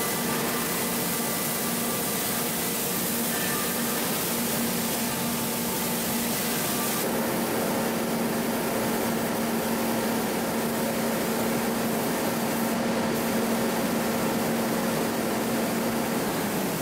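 Paint spraying in a spray booth: a steady hiss of spray guns with the booth's machinery humming under it, as gas cylinders are painted. The sound shifts abruptly about seven seconds in.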